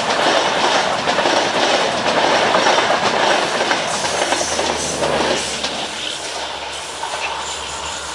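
Coaches of a passenger express train rolling past at speed, wheels clattering over the rail joints. The noise eases after about five seconds as the train draws away, leaving a fainter steady low hum.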